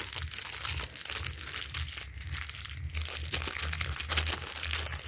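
Packaging crinkling and crackling as a phone charger and cable are unwrapped by hand, with dense small crackles throughout.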